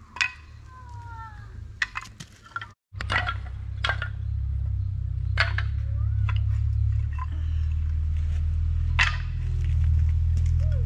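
Small wooden blocks knocking and clattering against each other every second or two as a pile of them is handled, over a steady low rumble. A few bird chirps sound in the first second.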